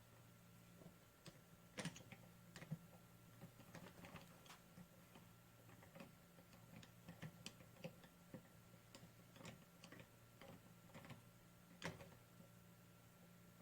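Diacro bench spring winder being worked by hand: faint, irregular clicks and taps, two of them louder, about two seconds in and near the end, over a steady low hum.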